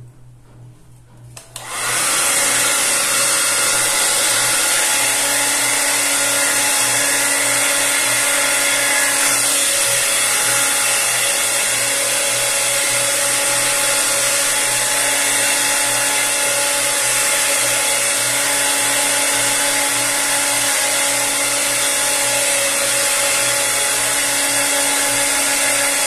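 Mondial Golden Rose SCN-32 2000 W hair dryer switched on about two seconds in, then running steadily: a loud rush of air over a constant motor hum, blowing onto wet hair.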